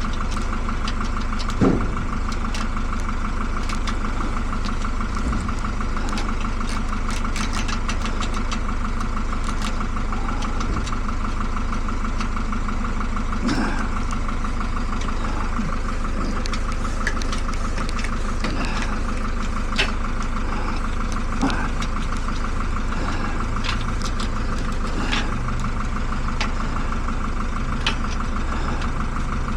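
A steady machine hum with a low rumble, with occasional light clicks and taps over it.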